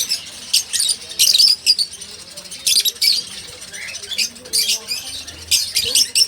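A group of small caged pet birds chirping and squawking in quick, high-pitched bursts that come irregularly, several times a second at their busiest.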